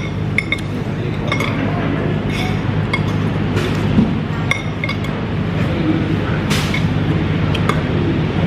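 Metal spoon and fork clinking and tapping irregularly against a plate during eating, over a steady low hum.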